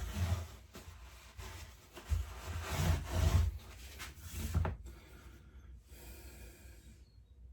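Rubbing and scuffing of engine parts being wiped and handled during cleaning, in irregular bursts with dull low knocks, loudest about two to three and a half seconds in and dying down after about five seconds.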